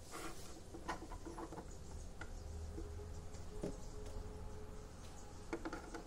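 Faint, scattered clicks and taps of small parts being handled on a workbench, over a low steady hum.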